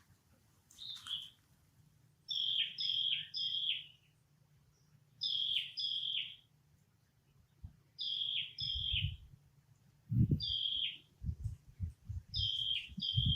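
A bird calling: short, high notes that slide downward, repeated in quick groups of two or three. Low dull thumps come in during the second half.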